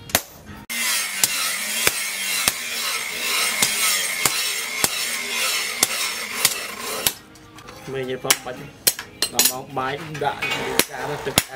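Hand hammer striking a steel machete blade on an anvil: sharp metallic blows about twice a second, with a steady hiss under the blows for most of the first half.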